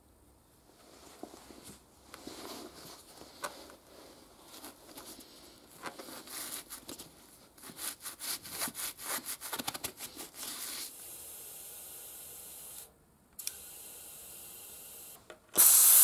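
A bristle brush scrubbing undiluted baby shampoo onto a tire bead and rim in repeated short strokes, lubricating the bead so it will seat. Then a steady hiss, and near the end a short, loud rush of air from the tire inflator.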